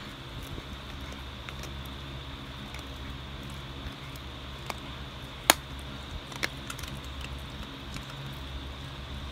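Dog gnawing a bone: scattered sharp cracks and clicks of teeth on bone, the loudest about five and a half seconds in, over a steady low hum.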